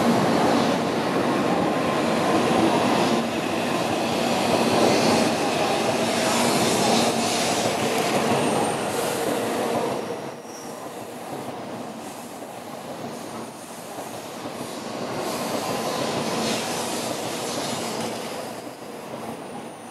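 N700-series Shinkansen train rolling past on the rails: a steady rumble of wheels and running gear. It is loudest for the first half and drops off about halfway through, then swells a little again.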